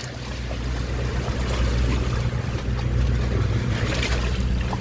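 Boat engine running steadily with a low, even hum, under a faint wash of wind and water noise.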